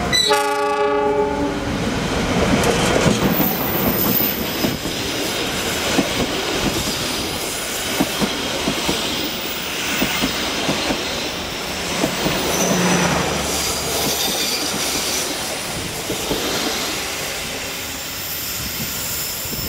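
A CC 206 diesel-electric locomotive sounds its horn once for about a second and a half, then it and its passenger carriages roll past with steady running noise and wheels clicking over rail joints.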